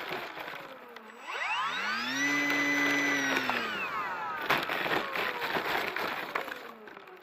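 A model airplane's electric motor and propeller throttled up, held for about a second and a half, then throttled back: a whine that rises, holds steady and falls away. Rustling and scattered clicks run throughout.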